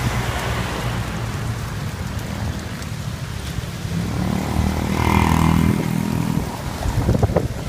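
Storm wind gusting against the microphone with rain, a steady noisy rush and low rumble. About four seconds in, a low pitched hum swells for a couple of seconds and fades.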